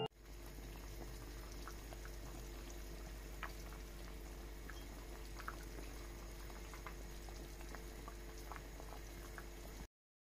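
Pot of pumpkin soup simmering on the stove: small bubbles popping now and then over a low steady hum. The sound cuts off abruptly near the end.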